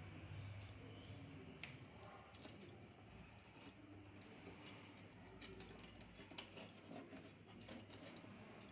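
Near silence: faint room tone with a low hum and a few soft clicks from handling wires and small tools.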